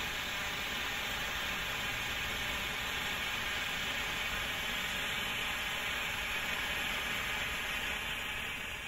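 Weco red Bengal hand flare burning with a steady hiss.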